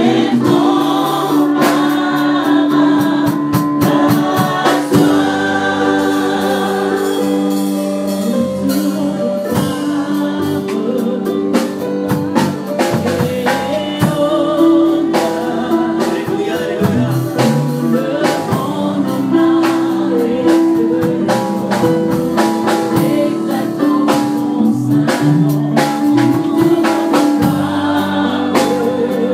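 Live gospel worship song: a group of male and female singers on microphones, sustaining and gliding between notes, over a band with drums keeping a beat.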